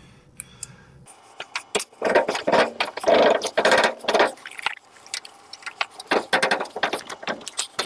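Metal hand tool clicking and scraping against a seized leveling foot under a Whirlpool front-loader washer as it is worked to turn it: irregular clusters of sharp clicks and rattles, starting about a second in. The foot is stuck fast, "froze".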